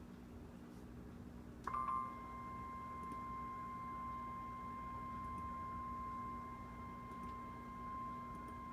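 NOAA Weather Radio's 1050 Hz warning alarm tone: one steady, unwavering high tone that starts abruptly a little under two seconds in and holds. It signals that a warning message is about to be broadcast. Before it there is only faint radio hum.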